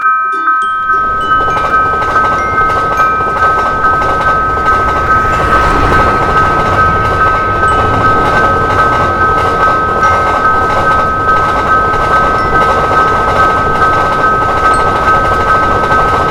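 Level crossing warning bell ringing in a quick, even rhythm of about two to three strikes a second, while a passing train adds a loud, steady running noise that starts about half a second in.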